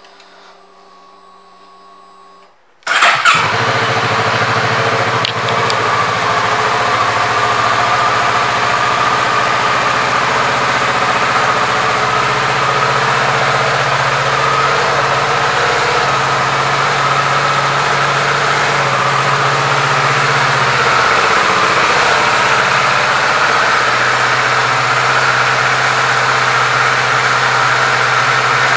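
2017 Kawasaki Z650's 649 cc parallel-twin engine is started about three seconds in. It catches at once and settles into a steady idle.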